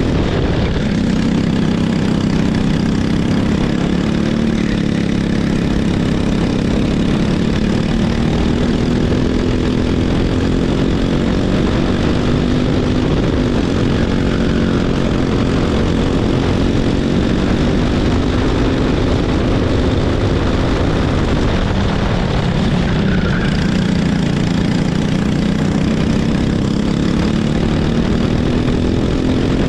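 Racing kart engine heard onboard at race pace. Its pitch sags as the kart slows for corners and climbs again as it accelerates, most clearly about a second in and again near the end.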